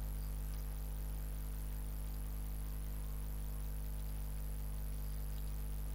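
Steady low electrical hum with a stack of even, unchanging tones above it, typical of mains hum picked up in the recording chain; a couple of very faint clicks are heard.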